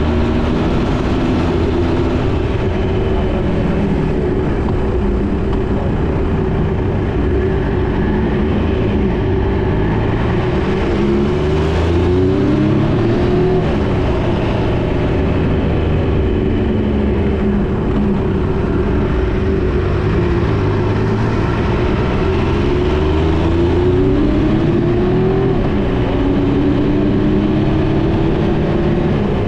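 Motorcycle engine running on the move, its pitch rising several times as the throttle opens and falling again between, over a steady rushing road and wind noise.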